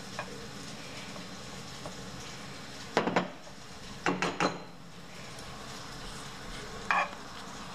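A spoon knocking and scraping against a nonstick frying pan as solid coconut oil is scraped off it into the pan: one clack about three seconds in, a couple more about a second later, and one near the end, over a steady low hum.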